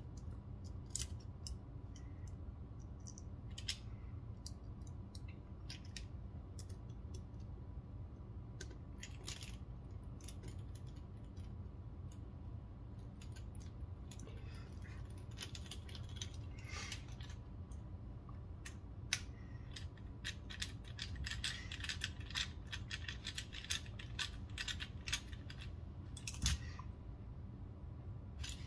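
Small metal clicks and taps from a precision screwdriver turning the screws of a Benchmade Mini Bugout folding knife's handle, mixed with handling of the knife. The clicks come singly at first, then in runs of rapid clicking around the middle and from about twenty seconds in.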